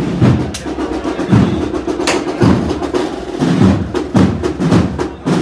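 Holy Week procession band playing a processional march, its drums striking about twice a second.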